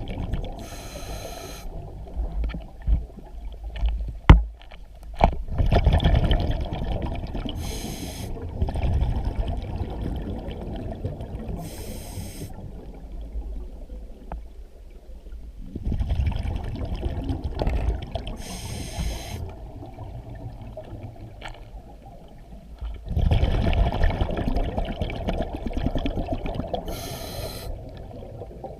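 Scuba diver breathing underwater through a regulator: short hisses every few seconds and long rumbling stretches of exhaled bubbles. A sharp knock about four seconds in.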